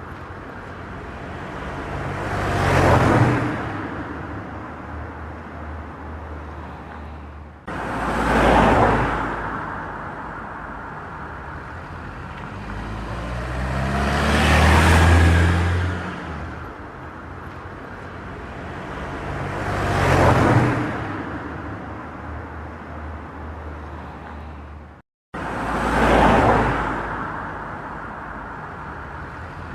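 Vehicles passing by one after another, about five times, each swelling up and fading away, over a steady low engine hum.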